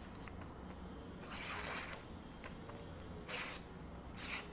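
Freshly sharpened CPM Rex121 knife slicing curved cuts through newspaper: three short, soft hissing swishes of paper parting, the longest about a second in. The easy, clean cutting is a sign of a razor-sharp edge.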